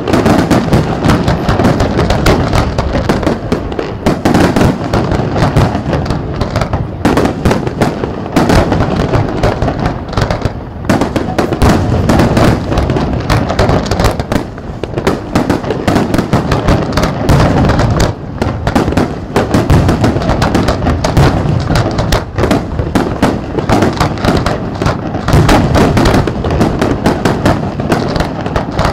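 Aerial fireworks display: a loud, continuous run of overlapping shell bursts, many bangs every second, with no pause.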